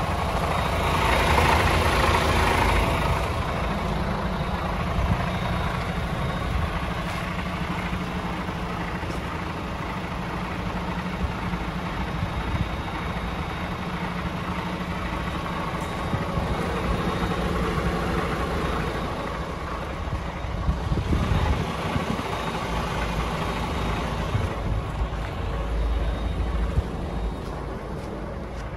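Paccar MX-13 six-cylinder diesel engine of a DAF XF106 440 tractor unit idling steadily, with a louder rushing noise in the first few seconds.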